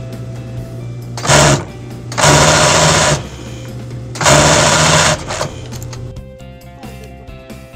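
Industrial sewing machine running in three short bursts, the first about half a second and the next two about a second each, while stitching an elastic waistband onto shorts.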